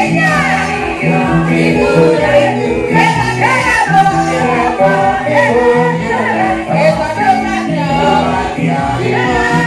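Church praise team singing gospel together into microphones, over amplified accompaniment with a repeated bass line.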